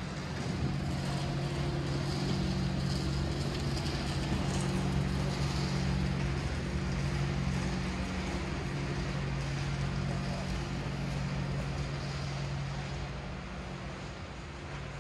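A motor vehicle's engine running at a steady low hum that swells over the first couple of seconds and slowly fades toward the end.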